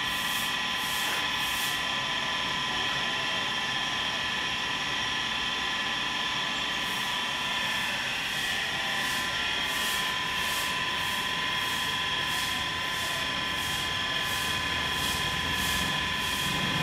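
Steady outdoor background hum and hiss with several constant high tones, and a high pulsing chirr of about two pulses a second that drops out for a few seconds early on and then returns.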